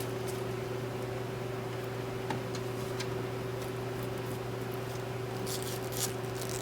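Protective plastic film being peeled off a printer's glossy trim: a few faint crackles and ticks, bunched near the end, over a steady low hum.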